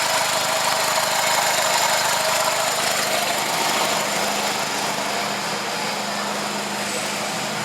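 1999 Honda Civic's 1.6-litre four-cylinder engine idling steadily.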